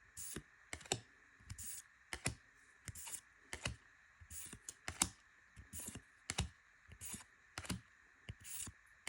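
Trading cards being flipped one at a time through a freshly opened booster pack: a short swish of card sliding over card, then a light tap, repeating about one and a half times a second.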